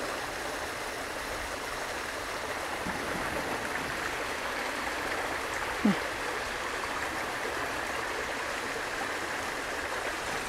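Small rocky creek running over stones in little cascades: a steady rush and trickle of water. A single short low bump sounds a little past halfway.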